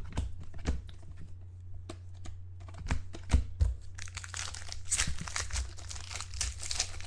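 Trading-card pack wrappers crinkling and tearing as packs are opened and cards handled: scattered light clicks and rustles at first, then dense continuous crinkling from about four seconds in. A steady low electrical hum runs underneath.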